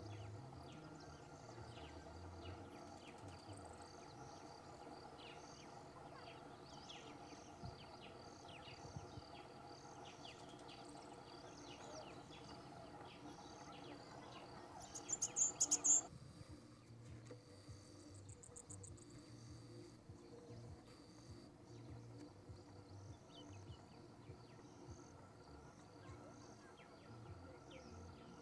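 Insects chirping constantly in grassland, many short high ticks close together. Just past halfway a louder, rapid buzzing trill lasts about a second and cuts off abruptly.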